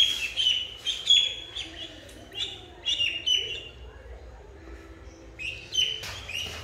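Ducklings peeping: rapid short high calls, each dropping a little in pitch. They pause for a couple of seconds midway and start again near the end.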